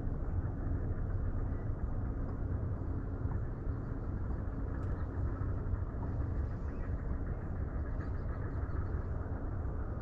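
Steady low rumble of outdoor background noise with a faint steady hum above it, unchanging throughout.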